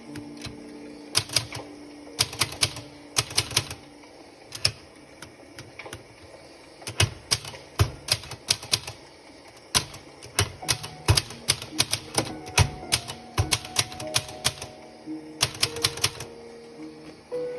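Old typewriter being typed on: keys strike in quick, irregular clusters with short pauses between them.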